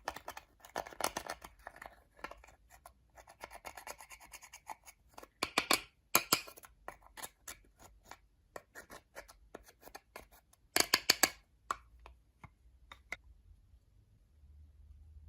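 Slime being handled and mixed with makeup: irregular bursts of scraping and crackling with many sharp clicks, that stop about thirteen seconds in.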